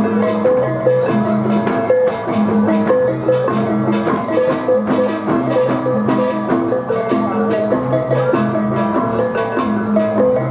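Balinese baleganjur gamelan playing: ceng-ceng kopyak hand cymbals clashing in a fast, dense rhythm over kendang drum strokes and repeated pitched gong notes.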